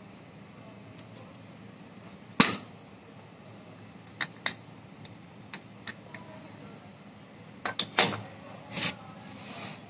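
Metal parts of a tractor starter motor clinking and knocking as the yoke is handled and fitted onto the drive-end housing during reassembly: one sharp knock about two and a half seconds in, scattered lighter clicks, then a quick cluster of knocks near the end.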